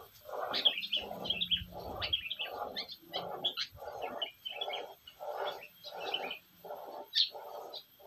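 Sooty-headed bulbuls chirping in quick, bright, high notes. Underneath is a low, rough pulse that repeats steadily about twice a second.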